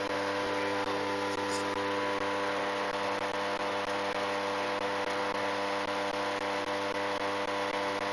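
ICON A5 light sport amphibian's Rotax 912 engine and propeller droning steadily in cruise flight, heard inside the cockpit: an even hum with several fixed tones that does not change.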